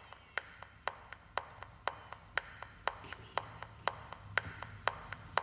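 A steady beat of sharp clicks, about two a second, with fainter ticks between them.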